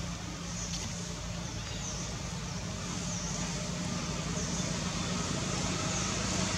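A steady low hum with a faint high chirp repeating about once a second.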